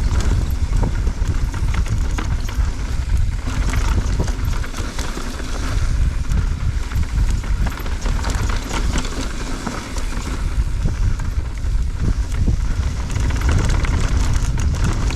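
Riding a mountain bike fast down a rough, rocky trail: heavy wind rumble on the helmet-mounted microphone over a steady clatter and rattle of tyres and bike over stones and roots.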